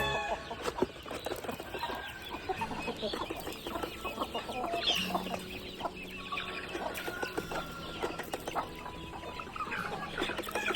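A flock of chickens clucking, many short calls from several birds overlapping.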